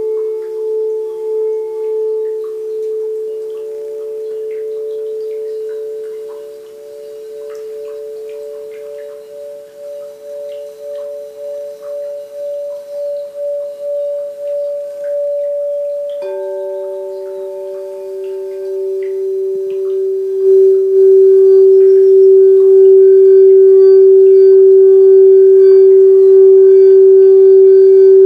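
Crystal singing bowls ringing in long, steady overlapping tones with a slow wavering pulse. About sixteen seconds in, a lower-pitched bowl comes in sharply and swells much louder a few seconds later, ringing on steadily.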